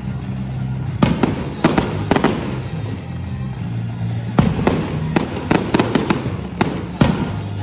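Fireworks exploding in a string of sharp bangs, about nine over several seconds, over steady music.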